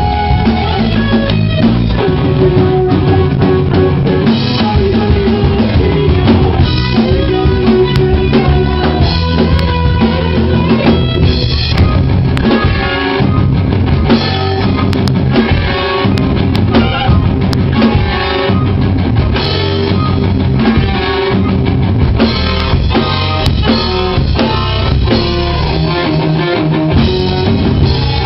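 Progressive rock band playing live and loud: drum kit with kick drum, and guitar.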